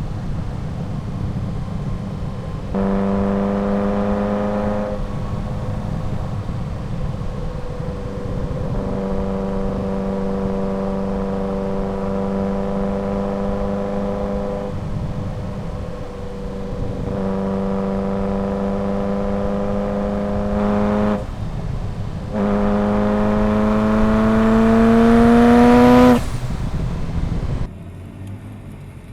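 Ferrari F40's twin-turbo V8 running at steady revs in several stretches over road and wind rumble. Near the end it revs up, its pitch rising with a high whine climbing alongside, before cutting off sharply and dropping to a much quieter sound.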